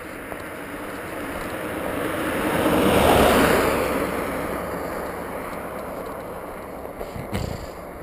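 A car passes on a wet, slushy road, its tyre hiss and engine swelling to a peak about three seconds in, then fading slowly as it drives away. A short thump near the end.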